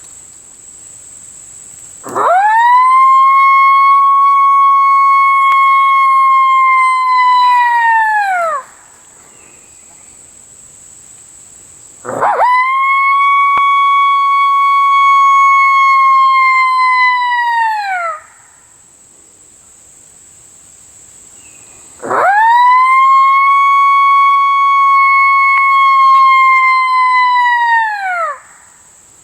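Three long lone coyote howls blown on a mouth-blown howler call (the MFK Howling MOFO), about ten seconds apart: each swoops up quickly, holds one steady pitch for about six seconds, then falls off at the end. A steady high insect drone, crickets, runs underneath throughout.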